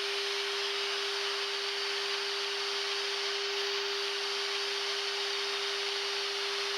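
Steady flight-deck noise of a Boeing 747-400 in flight: an even rush of air with a constant hum running through it.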